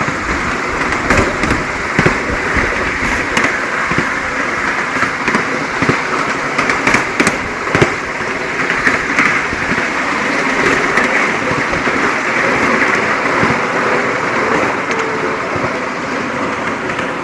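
Miniature ride-on railway train running along its track: a steady rattling run of the wheels on the rails, with irregular sharp clicks and knocks from the wheels and couplings.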